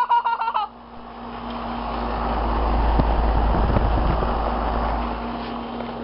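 A road vehicle passes by, its noise swelling to a peak midway and fading, over the steady low hum of a running Janitrol air-conditioner condenser.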